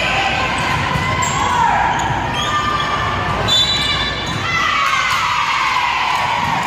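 Volleyball rally in a school gym: thuds of the ball being hit and of players' feet on the hardwood floor, with players and spectators shouting.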